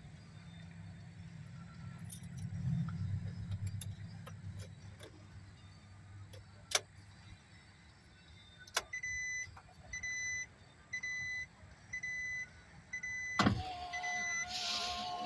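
Vehicle warning chime beeping about eight times at a steady pace after a couple of sharp clicks. It is cut off near the end by a loud clunk and a whine, as if the engine is being cranked.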